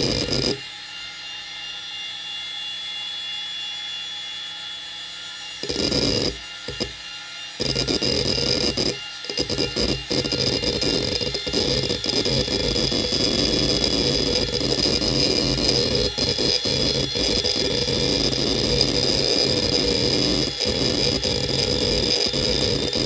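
IBM DMVS 9 GB SCSI hard drive from 1999 spinning with a steady high whine while its heads seek as it boots Windows XP. There are a few short bursts of seek chatter in the first seconds, then from about eight seconds in a continuous, rapid clattering of head seeks.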